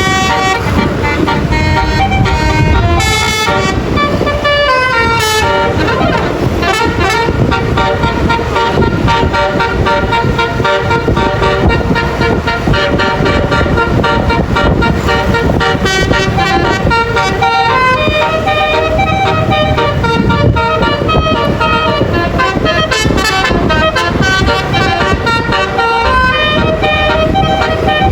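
A bus's telolet basuri musical horn playing tunes of stepping, gliding tones, on and on, over steady engine and road noise.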